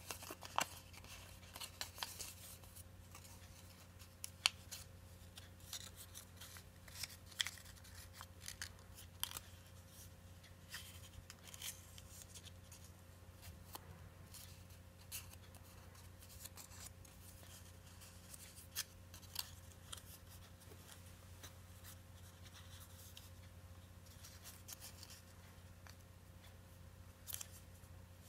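A sheet of origami paper being folded and creased by hand: scattered crisp crinkles and ticks of paper as the folds are pressed, over a faint steady hum.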